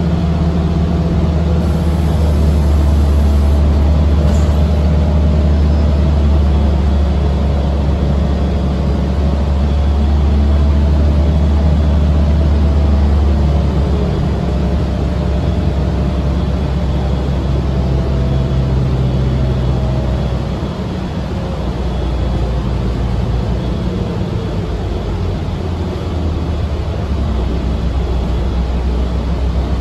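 Inside a moving city transit bus: the engine drones steadily under a rumble of road and body noise, easing a little about two-thirds of the way through.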